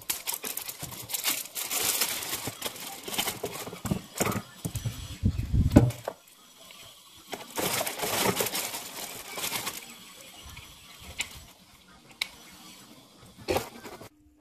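Clear plastic bag crinkling and rustling as a new water-filter cartridge is pulled out of it, in irregular bursts, with a few dull bumps of handling about five seconds in.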